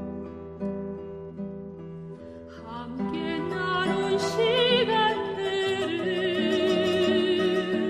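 AI-generated song: plucked acoustic guitar accompaniment, then about three seconds in a louder melody with wide vibrato comes in over it.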